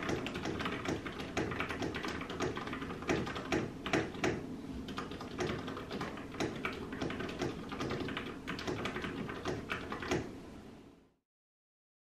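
Fast, continuous typing on a Vissles V84 mechanical keyboard, a dense run of keystrokes with a muted "thok" rather than a sharp clack. It fades out about eleven seconds in.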